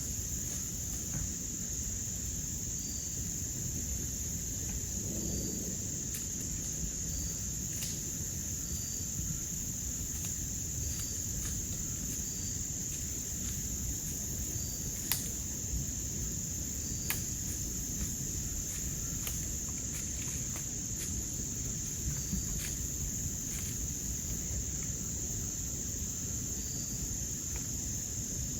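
Steady high-pitched chorus of crickets and other insects in the woods, with a faint chirp repeating every second or two. A few sharp little ticks come through, the clearest about halfway in.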